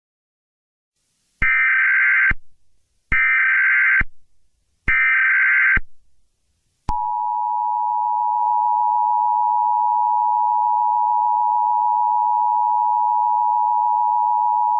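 Emergency Alert System alert opening: three identical bursts of SAME header data tones, each just under a second long, then the steady two-tone EAS attention signal starting about seven seconds in.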